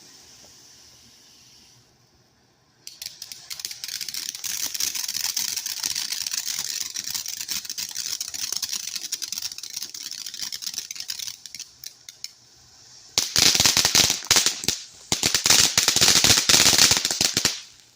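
Ground fireworks going off: a long run of dense rapid crackling, then a much louder fast string of sharp cracks and pops lasting several seconds, with a short break in the middle.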